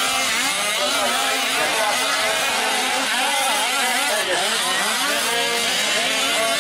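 Several 1/5-scale petrol RC trucks' small two-stroke engines running together in a race, their pitches rising and falling as they rev up and back off.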